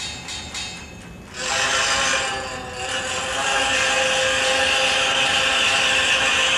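A steady buzzing drone with many overtones from a sound sculpture, starting after a quieter second and a half with a few clicks and then holding level.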